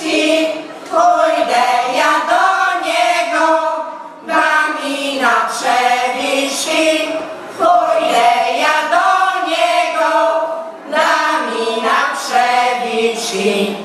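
Women's folk choir singing a Polish folk song in phrases of about three to four seconds, each followed by a brief breath pause.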